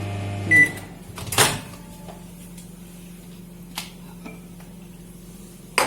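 Microwave oven stopped mid-cycle: its running hum cuts off with a short beep, then the door latch clacks open about a second later. A few light clicks follow, and another sharp clack comes near the end.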